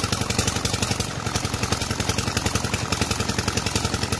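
Diesel engine driving a tubewell pump, running steadily with a fast, even beat, over the rush of water pouring from the pump's outlet pipe.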